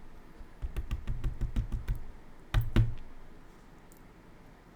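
Quick light clicks and taps of small metal lock parts being handled as the Assa Desmo cylinder's sliders are worked out, then two louder knocks about two and a half seconds in.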